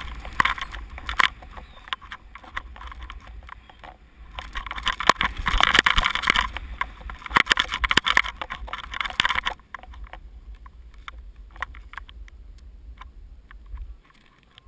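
Wind buffeting an action camera's microphone and the hiss of powder snow spraying as a rider goes fast through deep snow, in two loud surges. It quietens about two-thirds of the way through as the rider slows, and the low rumble stops just before the end.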